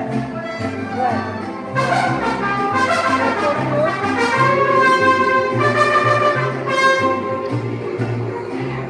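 Live mariachi band playing, trumpets carrying the melody over a bass line that changes note about twice a second.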